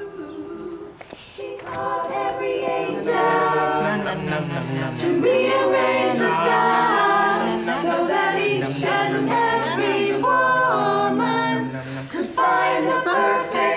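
Women's a cappella vocal group singing together in harmony, coming in about two seconds in and getting louder a second later.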